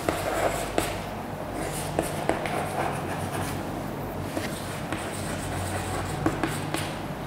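Chalk scratching and tapping on a chalkboard as words are written by hand, with small clicks scattered through, over a steady low room hum.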